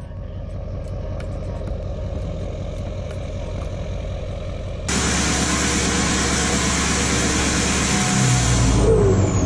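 Chevrolet Silverado HD pickup's engine running at the exhaust tip: a steady low rumble. About five seconds in it suddenly turns louder, with a strong hiss over the rumble, and the low end swells near the end.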